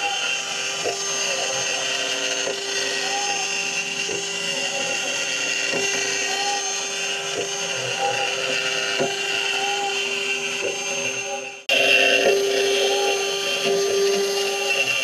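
CNC router's 80 mm, 2.2 kW three-phase spindle running under load, milling a deep cut with coolant flowing: a steady whine with a rise and fall in the cutting sound repeating a little more than once a second. It briefly drops out about twelve seconds in and comes back unchanged.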